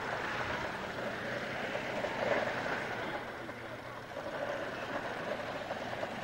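Vintage triplane's engine running at low power as it lands and taxis across a grass airfield, a steady engine noise that dips slightly partway through.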